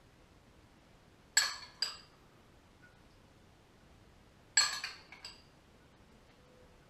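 Metal spoon clinking against crockery as dressing is spooned over a salad: two pairs of short, ringing clinks, about a second and a half in and again about four and a half seconds in.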